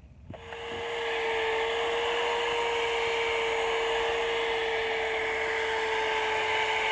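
Electric drill spinning a gray sanding disc against a wet plastic headlight lens, sanding off oxidation: a steady motor whine over the hiss of sanding, starting just after the beginning.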